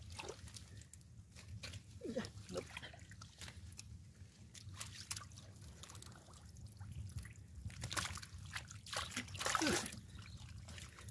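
Bare hands squelching and splashing through shallow mud and water while groping for fish, with irregular wet slaps and sloshes and a louder splash about nine and a half seconds in.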